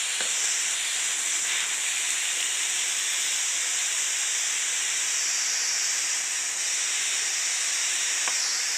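Propane hand torch burning with a steady hiss, its flame heating a brass spent-rifle-casing lug for soldering.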